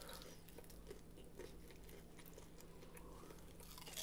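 Near silence: quiet room tone with a few faint soft ticks.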